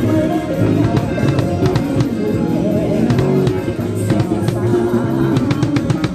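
Band music from an Isan band: drum kit, guitar and a wavering melodic line, playing continuously.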